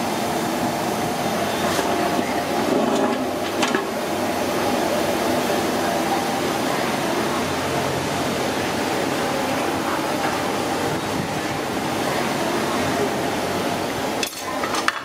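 Steady rushing kitchen background noise, with a few sharp metallic clinks about two and four seconds in as the aluminium steamer is handled.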